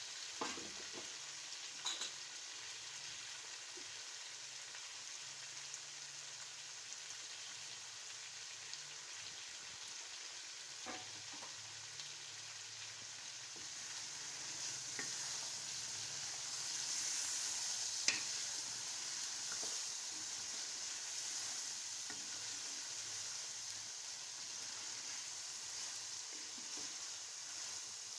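Chicken karahi frying in the pan with a steady sizzle and a few short knocks of a stirring utensil. The sizzle grows a little louder midway through.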